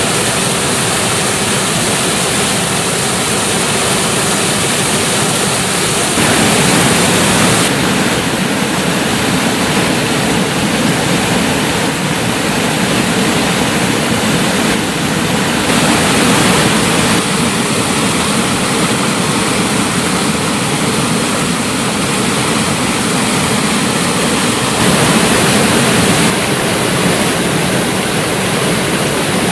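Rushing water of a small woodland stream: a steady, loud roar that shifts abruptly in tone a few times.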